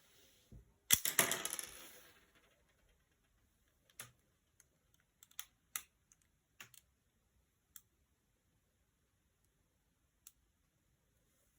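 Hard plastic clicking from a Lego revolver being worked. About a second in there is a sharp snap and a rattling clatter that fades over about a second, then scattered single clicks.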